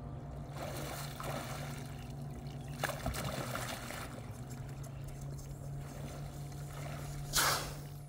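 Water sloshing and splashing around a capsized kayak as the paddler underneath tries to roll it upright, with a sharp splash about three seconds in and a louder one near the end. A steady low hum runs underneath.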